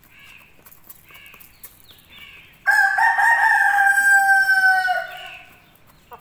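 Young Aseel roosters: a few soft clucks, then about two and a half seconds in one crows loudly, a single long, even call of a bit over two seconds that drops at the end.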